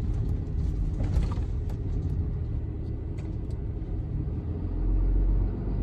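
Diesel engine of a log-loaded two-ton truck running at low speed with a steady low rumble, swelling louder about five seconds in.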